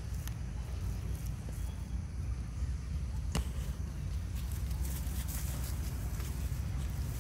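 Steady low wind rumble on the microphone, with a few faint ticks and one sharper click about three and a half seconds in.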